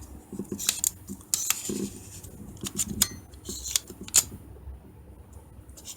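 Small metal parts and tools clicking and clinking as a camera zoom lens is taken apart by hand: a string of irregular sharp clicks, with light scraping between them.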